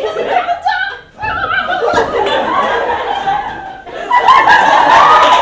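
Audience laughing, with wordless vocal reactions from the performers. A high, wavering voice is loudest from about four seconds in.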